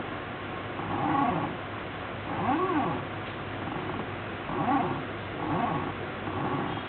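ShapeOko desktop CNC mill's stepper motors making a series of short moves, each a whine that rises and then falls in pitch as the axis speeds up and slows down, about one move a second, over a steady low hum.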